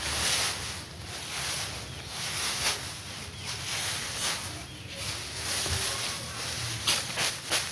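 Dry rice stalks rustling and swishing as they are handled in a hand harvest, swelling and fading every second or so, with a few sharper strikes near the end.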